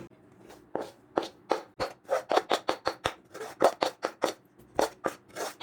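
Metal spatula scraping and knocking against the kadai and plate as the thick, ghee-rich Mysore pak mixture is turned out and spread. It comes as a quick, uneven series of short scrapes and taps, about four a second.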